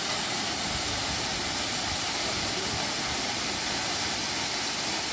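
A tall single-drop waterfall rushing steadily, an even, unbroken hiss of falling water.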